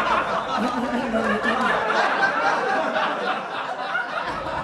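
Audience laughter: many voices chuckling and laughing at once, a dense steady wash right after a joke's punchline.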